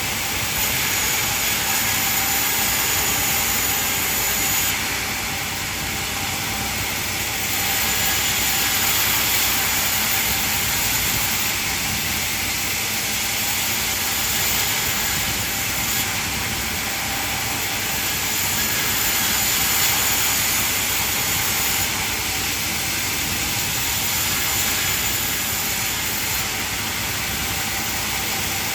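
Band sawmill running, its blade cutting through timber with a steady hiss, a thin high whine coming and going a few times.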